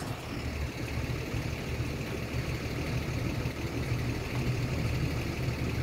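Flatbed tow truck's engine idling, a steady low hum.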